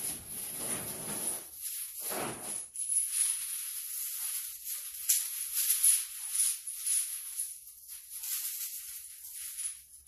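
Interlinked ceramic rings of a hand-built chain sculpture clinking and rattling against each other as the sculpture is lifted, squeezed and flexed by hand. The sound is fuller and heavier in the first couple of seconds, then becomes a steady, lighter jingling clatter.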